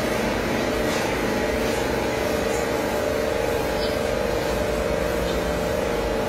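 Electric motors of an industrial stainless-steel deep fryer running steadily: the stirring motor turning the agitator while the hood tilts up. A steady machine hum with a couple of held tones.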